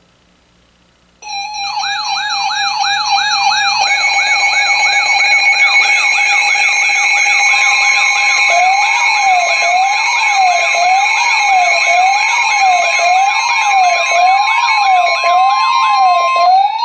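Electronic siren and alert tones layered together, starting abruptly about a second in. Several wailing and yelping sweeps at different speeds run over steady high tones, and more layers join over the next few seconds.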